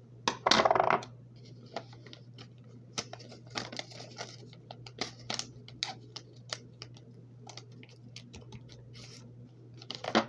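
Sticky tape being pulled off the roll with a loud rip about half a second in, then scattered crackles and taps as tape and paper are handled and pressed down, with another short rip near the end.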